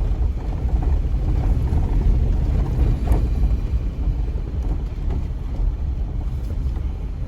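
Jeep driving on a dirt trail, heard from inside the cab: a steady low rumble of engine and tyres on the dirt road.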